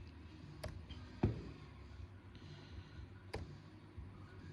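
A few scattered clicks and taps of a computer mouse and keyboard, one louder knock about a second in, over a low steady hum.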